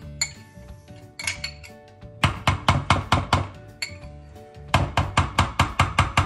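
A metal spoon clinking rapidly against glass or a bowl in two runs of about five strikes a second, scraping out and stirring yogurt. Background music plays underneath.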